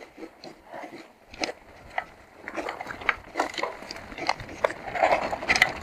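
A mountain bike rattling down a bumpy dirt trail: irregular clicks and knocks as the bike jolts over the ground, with the tyres crunching on the dirt.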